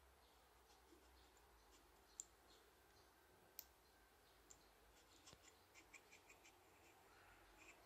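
Faint, scattered metallic clicks from a pick-decoder tool being worked inside a CISA Astral cylinder lock, with a quick run of small ticks about six seconds in.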